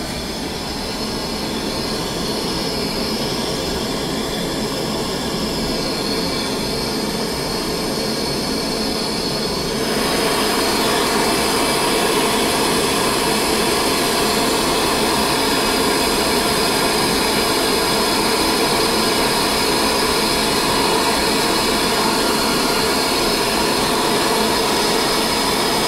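Hand-held gas torch burning with a steady hissing rush, heating a fluxed steel bushing and ring joint for silver soldering. The flame noise gets louder and brighter about ten seconds in.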